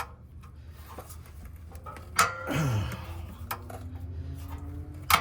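Metal hand tools clinking and scraping against parts under a car, with a sharp clank about two seconds in.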